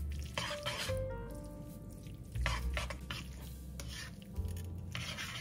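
Spaghetti being stirred and turned with tongs in a frying pan, a few short swishes of the pasta moving against the pan, over background music.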